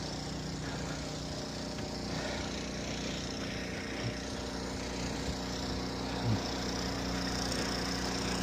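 An engine running steadily at an even idle, a low continuous hum, with a couple of faint brief knocks over it.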